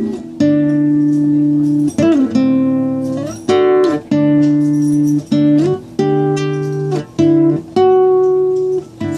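Acoustic guitar playing slow strummed chords, each struck and left to ring for about a second before the next. A few notes slide in pitch between chords.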